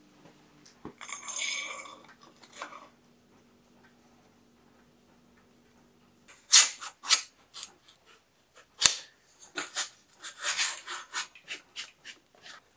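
Bicycle handlebar and controls being handled and fitted by hand, metal and plastic parts clicking and scraping. A rasping scrape comes about a second in. From about six seconds on there is a run of sharp clicks and taps, the sharpest near seven and nine seconds.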